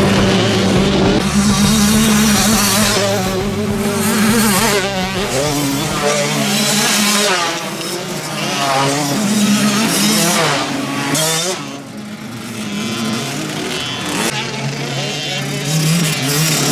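Small two-stroke youth motocross bikes running on a dirt track: several engines rev up and down, their pitch rising and falling, as the bikes accelerate, shift and pass.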